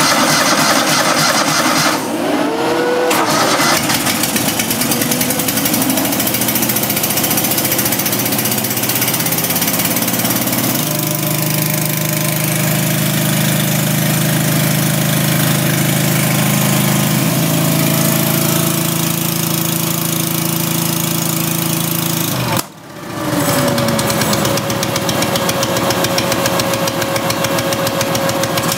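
Kohler Command V-twin engine running just after a carburetor rebuild. Its note strengthens and deepens about eleven seconds in, and the sound drops out briefly about two-thirds of the way through.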